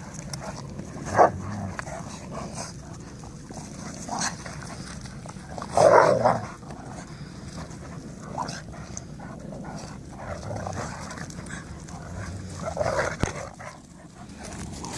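Dogs, Kangals among them, vocalizing in short outbursts as they play-fight: rough play noises, not a real fight. The loudest outburst comes about six seconds in, with a sharp one about a second in and another near the end.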